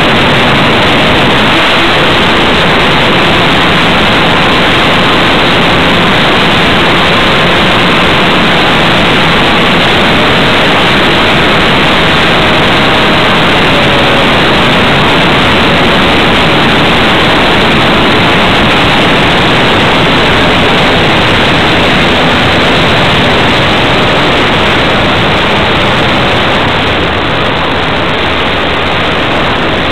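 Radio-controlled model airplane in flight heard through its onboard camera's microphone: a loud, steady rush of wind noise with a faint wavering engine tone under it. The noise eases off somewhat near the end as the plane comes down to land.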